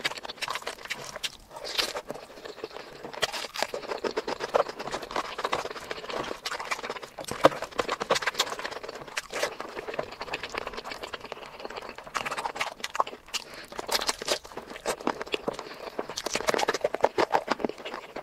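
Close-miked ASMR eating sounds: fingers squishing rice into wet curry and mouth-open chewing, making a dense, irregular run of small wet clicks, smacks and crackles.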